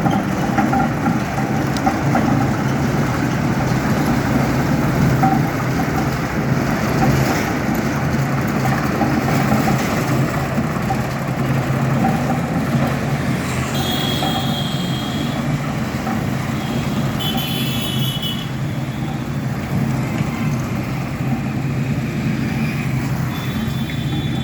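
Road roller's diesel engine running steadily. A few short, high-pitched tones cut in near the middle and again near the end.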